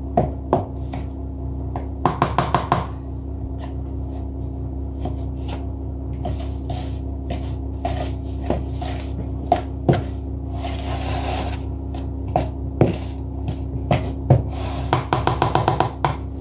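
A spoon knocking and scraping against a mixing bowl as icing sugar and butter are stirred together, with quick runs of taps about two seconds in and again near the end. A steady low hum sits underneath.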